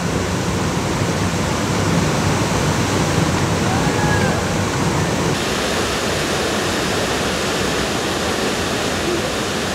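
Wahclella Falls pouring about 65 feet into its plunge pool: a steady, unbroken rush of falling water.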